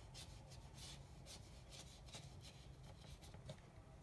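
Faint scratching of a paintbrush on paper, a quick run of short irregular strokes as paint is brushed on.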